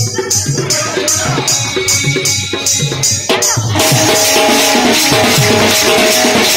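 Loud dance music with a drum beat and shaker, at about three beats a second; about halfway through it switches to a denser, louder section.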